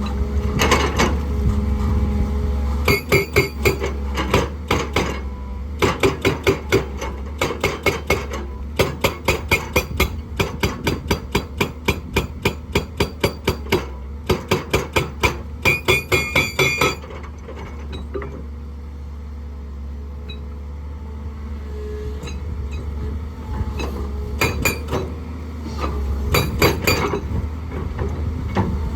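Hydraulic rock breaker on an excavator pounding rock in runs of rapid, evenly spaced blows, a few a second, over the steady running of the excavator's diesel engine. The hammering stops a little past the middle, the engine runs on alone for several seconds, and a short run of blows comes again near the end.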